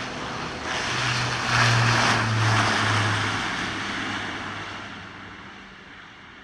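Airbus A400M's four TP400-D6 turboprop engines at high power on a takeoff run: a loud rushing drone over a steady low propeller hum. It is loudest about two seconds in as the aircraft passes, then fades as it moves away.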